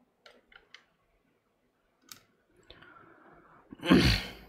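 A few light clicks, then a short, loud thump with a rush of noise near the end.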